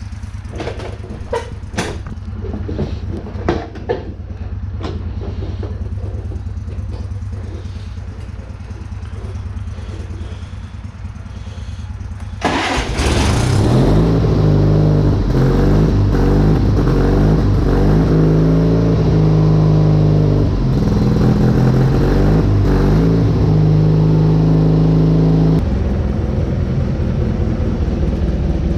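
Kohler 18 hp Magnum engine of a Craftsman riding mower running, with a few sharp clicks and knocks in the first few seconds. About twelve seconds in it suddenly gets much louder and runs at higher speed, easing off slightly near the end. The mower has just been fitted with a new drive belt to cure a grabbing clutch.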